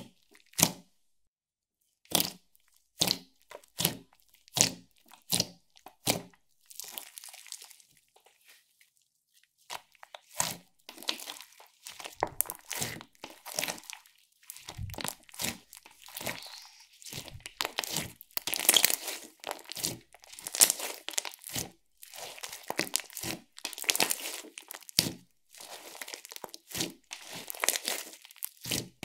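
Clear slime with glitter and confetti mixed in, worked by hand: single sharp wet pops of trapped air as fingers poke into it for the first few seconds. After a short pause comes a dense run of clicks and squishing as it is stretched and squeezed.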